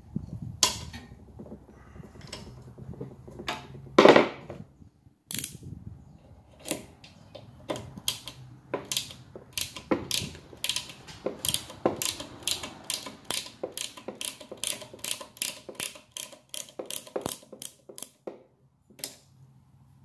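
Ratcheting box-end wrench clicking as housing bolts on a small water pump are turned out: a long run of sharp ratchet clicks, about two to three a second at their fastest. A loud metal clank comes about four seconds in.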